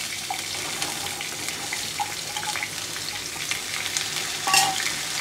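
Sliced ivy gourd (tendli) sizzling in a little hot oil in a kadhai, just tipped in from a steel bowl, with a steady hiss, a few small clinks and a single knock near the end.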